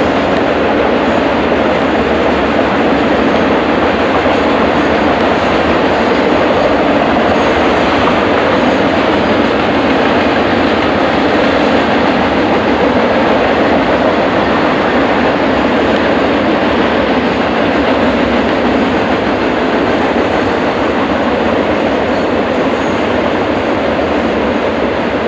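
Union Pacific freight train's double-stack container cars rolling past: a steady, loud rumble of steel wheels on rail that holds even throughout.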